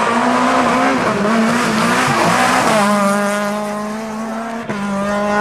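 Rally car engine at full throttle through a tight bend, its pitch rising and falling with the throttle and mixed with tyre squeal. From about three seconds in it holds a steady high note as the car accelerates away.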